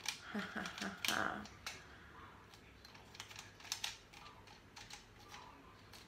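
Scattered faint clicks and rattles of a folding tripod stand's plastic and metal parts being handled, as its lock is loosened and the stand adjusted.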